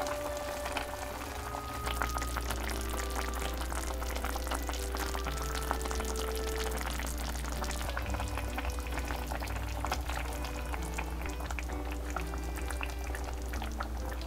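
Pot of kimchi stew bubbling and crackling as it simmers, with background music.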